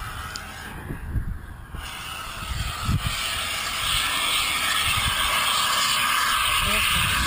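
Compressed gas hissing steadily out of a cylinder rack's hose into a weather balloon as it is inflated. The hiss builds up about halfway in and then holds steady, over low rumbling wind on the microphone.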